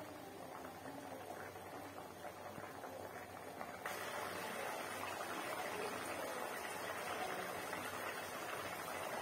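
Cauliflower curry in coconut-milk gravy bubbling as it simmers in a steel pan. About four seconds in, the sound jumps louder and hissier as the thickened curry boils.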